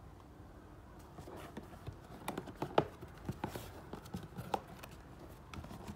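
Cardboard reel box being handled and tipped open by hand: a scatter of light taps and knocks, starting about two seconds in.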